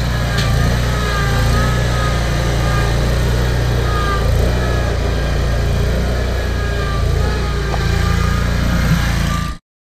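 Gravely zero-turn mower with a leaf-collection bagger, engine running steadily as it drives across a lawn, with a faint wavering whine above the engine. The sound cuts off suddenly near the end.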